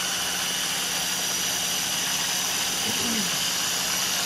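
Small electric mini food processor motor running steadily, blending Caesar dressing as olive oil drizzles in through the small holes in its lid to emulsify it.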